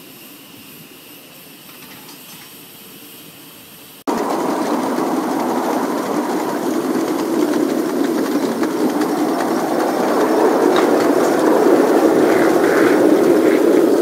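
Live-steam 1/8-scale model of a Pennsylvania Railroad Q2 duplex locomotive running on its track. About four seconds in, the sound jumps suddenly to a loud, steady rush of steam and wheels on the rails.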